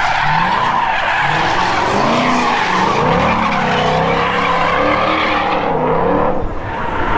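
Car tyres squealing continuously in a hard skid, the squeal wavering in pitch over a low rumble of the car, easing briefly near the end.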